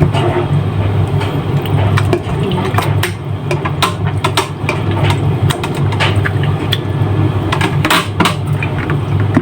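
A steady low hum under irregular clicks and light taps of kitchen handling, as chicken is worked in a dish for marinating.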